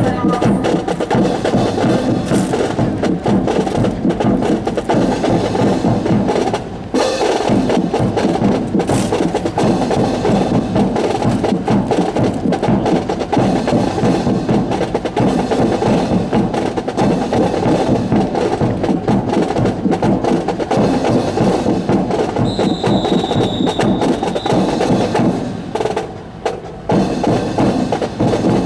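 Marching drum corps with snare and bass drums playing a steady drill cadence, with sharp wooden clacks over it. Twice the drumming briefly drops away, and about three-quarters through a high steady tone sounds for about two seconds.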